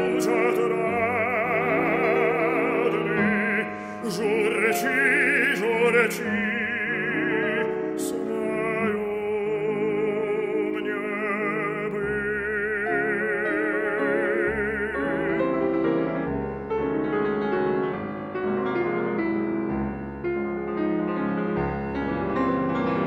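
Russian romance for baritone and piano: an operatic baritone sings long held notes with wide vibrato over piano accompaniment. About fifteen seconds in the voice stops and the piano plays on alone.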